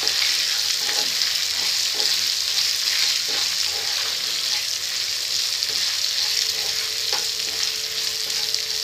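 Sliced onions and capsicum sizzling in hot oil in a pan while a spatula stirs them, with faint scrapes of the spatula against the pan now and then.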